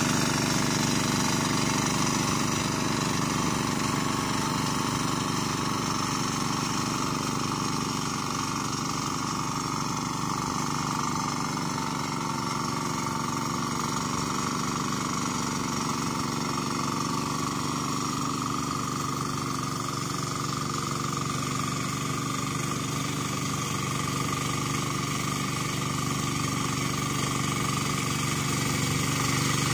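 Yamma 12 HP single-cylinder diesel engine of a walk-behind turtle tiller running steadily as it pulls through deep, sticky paddy mud. It fades a little in the middle and grows louder again near the end.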